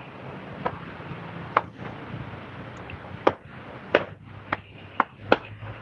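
About eight short, sharp clicks or taps at irregular intervals over a faint, steady low background hum.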